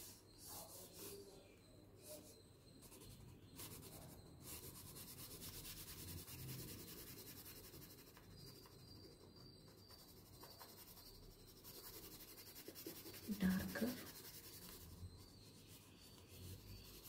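Pencil lead rubbing and scratching on paper, faint and steady, as a dark shadow is shaded in with repeated strokes.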